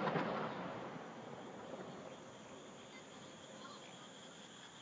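Insects chirring steadily in high, continuous tones on a summer night, while the rumbling echo of a firework shell's bang fades away over the first second.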